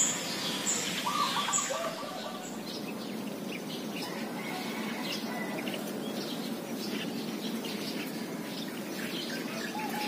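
Flock of yellow-vented bulbuls chirping, many short scattered calls over a steady background hiss.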